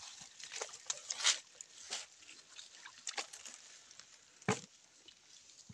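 Scattered splashes and squelches of rubber boots wading through shallow muddy water, with one louder sharp noise about four and a half seconds in.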